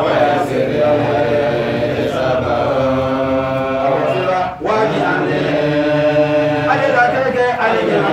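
Men's voices chanting Islamic devotional verses in long, held notes, broken once briefly about halfway through.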